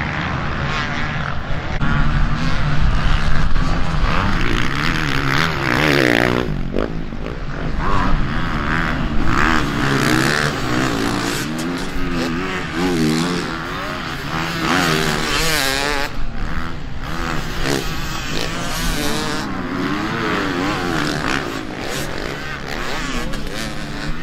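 Several motocross bikes racing, their engines revving up and falling back over and over as they accelerate, shift and brake around the track.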